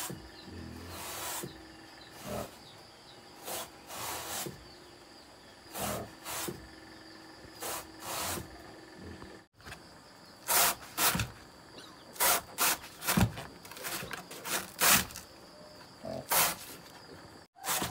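Knife slicing through a banana stem, cutting it into thin rounds, heard as a series of irregular cutting strokes that become louder and sharper about halfway through.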